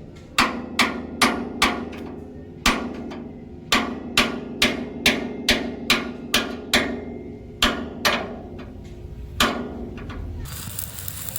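Hammer blows on metal, about seventeen strikes in uneven runs, each ringing briefly.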